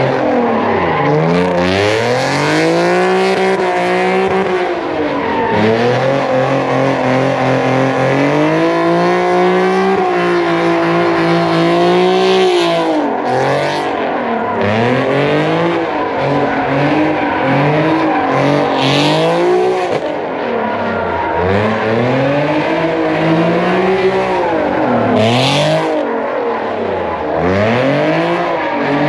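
A car engine revving hard while the car does donuts. The revs climb, hold and drop over and over every few seconds, and the tyres squeal now and then.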